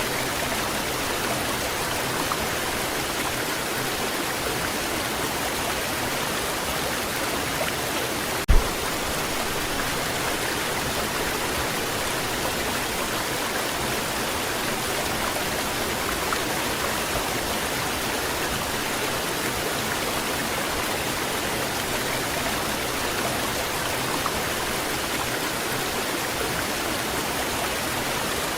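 Waterfall water rushing with a steady, even sound. A single short thump about eight seconds in.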